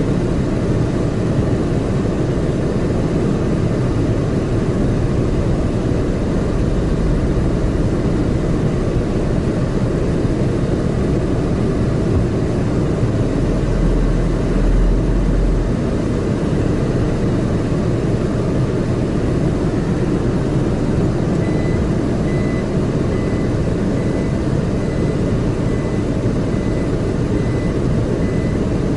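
Car driving slowly, heard from inside: a steady low rumble of engine and tyres, with a deeper low surge for a couple of seconds about halfway. From about two-thirds of the way through, a high beep repeats at a steady pace.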